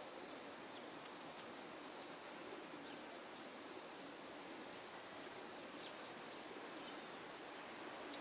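Faint outdoor ambience: a steady hiss with a thin, high insect drone, and a few faint short chirps scattered through it.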